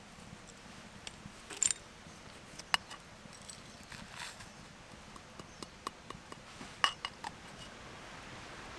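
Sparse, irregular sharp clicks and light clinks, about a dozen, over a low steady background.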